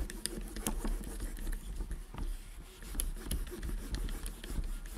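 Oil-dampened cloth rag being drawn back and forth between the clamped tension discs of a Singer 401A sewing machine: cloth rubbing and rustling with scattered small clicks and taps, over a low steady hum.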